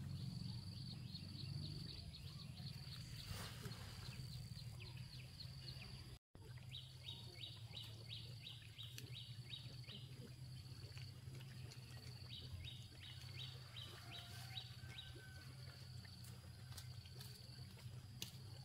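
Faint outdoor ambience: a steady high drone with runs of quick high chirps, about three a second, over a low hum. The sound cuts out briefly about six seconds in.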